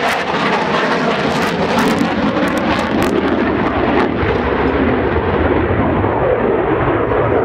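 F-16 fighter jet flying past on afterburner: a loud, steady jet roar with sharp crackles through the first three seconds.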